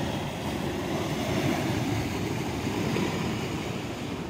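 Muddy flash flood (debris flow) surging down a mountain ravine: a steady, deep rushing churn of water and sediment.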